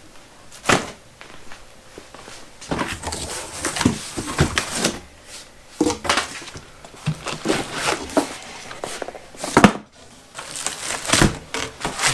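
A cardboard box and its packing being handled: rustling and scraping with a string of knocks and thunks. The loudest knock comes a little before the end.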